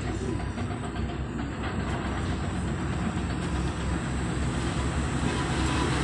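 A steady, low rumbling drone coming off the quarried mountainside, the 'strange sound' heard there, growing slowly louder.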